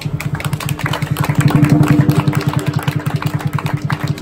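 Lion dance drum played in a fast, even roll of about a dozen beats a second, with cymbal strokes over it.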